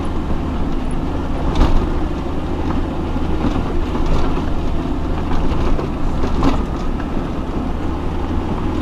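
Four-wheel-drive off-road vehicle's engine running steadily at low revs as it crawls over a rough, rocky track, with a few knocks from the vehicle jolting on the terrain.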